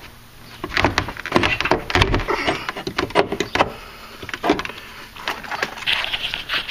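Irregular clicks, knocks and scraping, metal on metal, as a replacement lower door hinge is worked into place on a Mercury Grand Marquis rear door.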